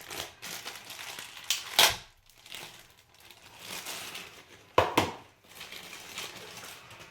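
Packaging rustling and crinkling as a small metal tin of tweezer tools is handled, with a sharp click about two seconds in and two quick clicks about five seconds in.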